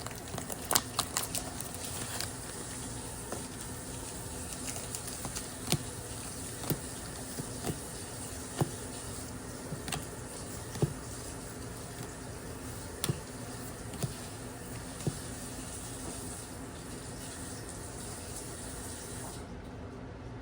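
Scattered light clicks and taps from handling a product and its packaging, a quick cluster at the start and then single ones every second or so, over a steady background hiss whose upper part drops away near the end.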